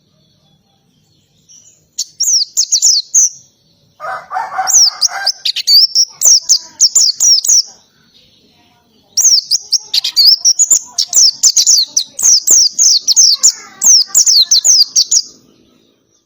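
A white-eye (pleci) singing loud, rapid phrases of high, quick downward-slurred notes in canary-like bursts: a short burst about two seconds in, a longer one starting with a lower, rougher buzz about four seconds in, and the longest from about nine to fifteen seconds.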